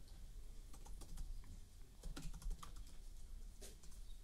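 Typing on a computer keyboard: quiet keystroke clicks at an uneven pace.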